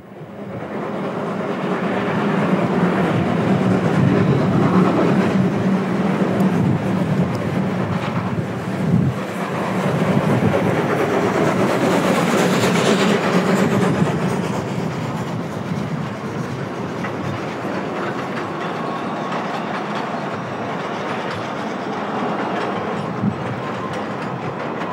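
Saxon-Meyer narrow-gauge steam locomotive hauling a freight train past on street track. The engine builds up over the first two seconds and is loudest through the middle, with a burst of steam hiss as it goes by. Then the wagons roll past with a steady rumble and clatter of wheels on the rails.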